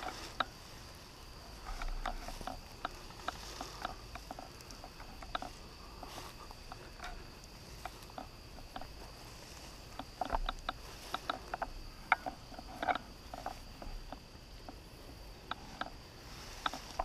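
Tall grass and brush rustling and snapping underfoot and against the body as a person creeps through it, in irregular clusters of light clicks. Under it, a steady high-pitched insect trill.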